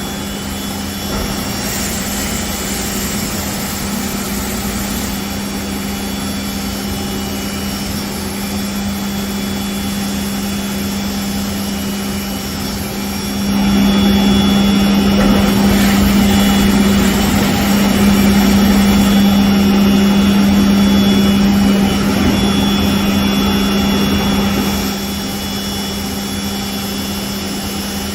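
Hurco VMX24 HSI CNC vertical machining center running under power: a steady mechanical hum with a strong low tone and several steady high whines. It gets louder about halfway through for some ten seconds, then drops back.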